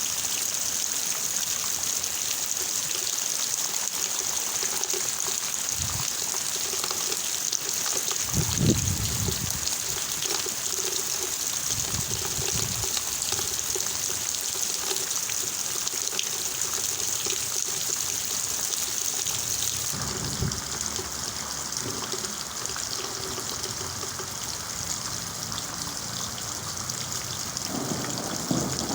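Steady heavy rain falling, a continuous even hiss. It turns a little softer about two-thirds of the way through. A few brief low rumbles come through, the strongest about nine seconds in and another starting near the end.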